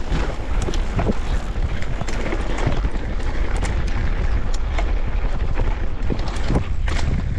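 Heavy wind rumble on the microphone, steady and loud, with scattered sharp clicks and knocks throughout.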